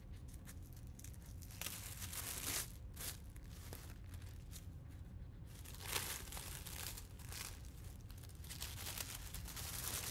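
Thin white packing wrap around a boxed vinyl record being handled, crinkled and torn by hand, in irregular rustling bursts, the strongest about two seconds in, about six seconds in and near the end.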